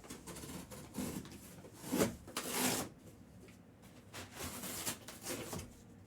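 Trading-card boxes and their wrapping being handled and opened: a run of rustling, scraping and tearing bursts, the longest about two to three seconds in.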